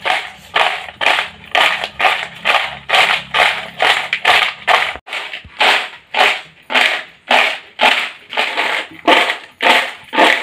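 Crisp, freshly fried potato chips rattling and crunching against a plastic bowl as it is shaken and tossed, in a steady rhythm of about two shakes a second, mixing in salt and chili powder.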